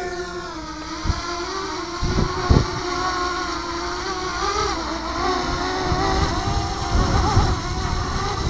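Small quadcopter drone's propellers whining in a steady hover just after lift-off, the pitch wavering slightly as it flies off. A few short low thumps sound in the first few seconds.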